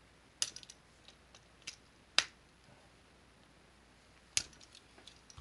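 A power-cord plug pushed into and pulled out of a loose duplex electrical outlet, a few sharp clicks at uneven intervals with the loudest about two seconds in. The repeated insertion scrubs the outlet's contacts clean.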